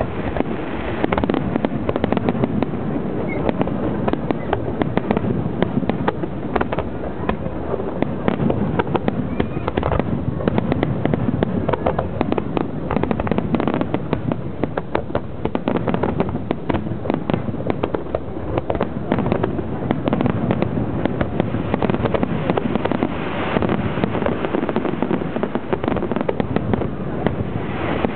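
An aerial fireworks display going off: a dense, continuous run of bangs and crackling with no breaks.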